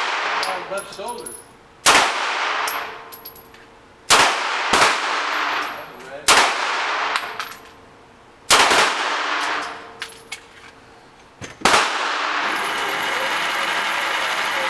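Six shots from an HK VP9 9mm pistol firing 115-grain handloads with Hodgdon HS-6 powder, unevenly spaced one to three seconds apart, each ringing off the walls of an indoor range. About twelve seconds in, a steady whir takes over as the target carrier runs the target back.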